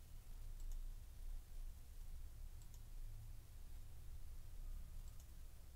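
A few faint computer-mouse clicks, roughly two seconds apart, over a low steady hum.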